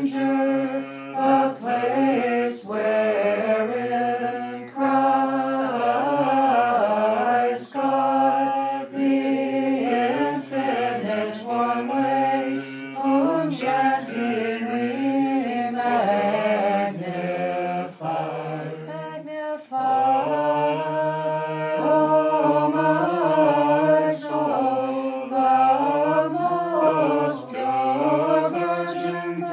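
Unaccompanied voices singing a Znamenny-chant Nativity carol in English, the melody moving in continuous phrases with a short break a little after two-thirds through.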